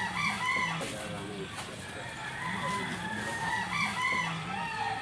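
Roosters crowing and chickens clucking, several calls overlapping one after another.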